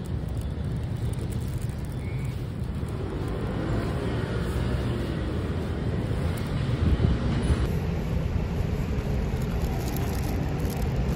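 Street traffic noise: a steady low rumble of passing road traffic.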